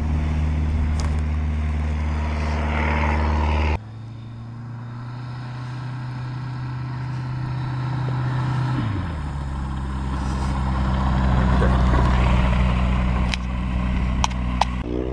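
Light-aircraft piston engine and propeller running steadily. After an abrupt cut, a plane's engine grows louder as the plane comes close across the grass, and its note drops about nine seconds in.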